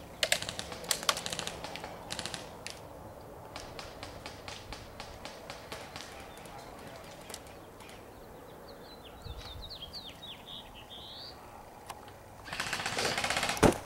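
Airsoft guns firing in bursts of rapid sharp clicks, with a loud noisy rush near the end.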